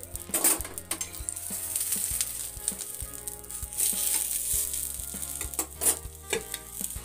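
Banana-leaf fish parcel sizzling in coconut oil on a hot stone griddle as it is turned over, with a few sharp knocks and clinks, the loudest about six seconds in as a metal lid is set over it.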